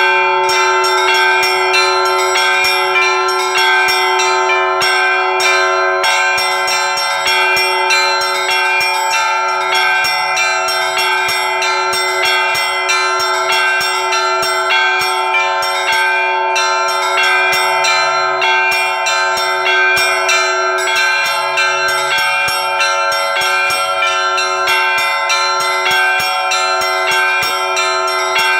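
Russian bell ringing (zvon) on a set of church bells. Small bells are struck in a rapid, dense, unbroken pattern over the steady ringing of larger bells.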